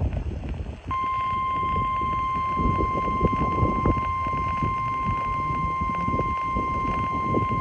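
NOAA Weather Radio 1050 Hz warning alarm tone: one steady, unbroken tone that begins about a second in and holds at a constant pitch over a rough background of reception noise. It is the weekly test of the alarm signal that sets off weather radio receivers.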